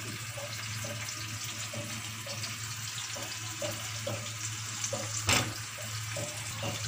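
Steady sizzle of sliced onions frying in hot oil, with a spoon working yogurt into spice-coated chicken on a plate and one sharp knock about five seconds in.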